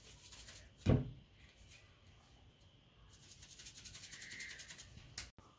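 Salt shaken from a salt canister onto a bowl of ice: a rapid rattling run of shakes in the second half, with a single dull thump about a second in.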